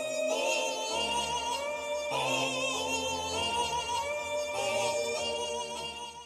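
Background music with a wavering sung melody over a bass line that comes in about a second in, fading out at the end.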